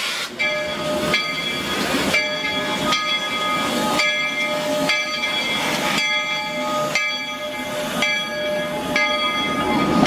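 Baldwin steam locomotive's bell ringing about once a second as the train rolls past, over a haze of steam hiss.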